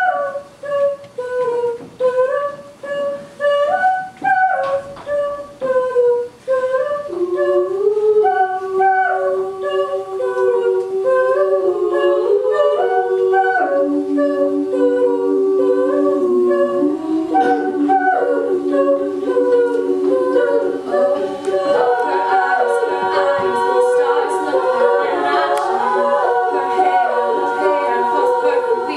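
Women's a cappella group singing with no instruments. A single melody line opens, sustained lower harmony parts come in about seven seconds in, and by the last few seconds the group is singing in full, dense harmony.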